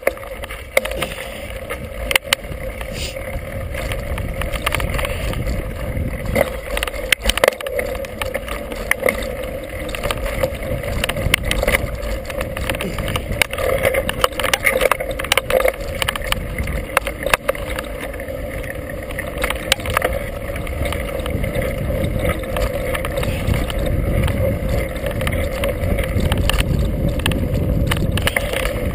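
Mountain bike on knobby Kenda tires rolling fast over a dirt trail: a steady rush of tire and wind noise with a low rumble, and frequent clicks and rattles of the bike over bumps. A steady hum runs underneath, and the rush grows a little louder toward the end.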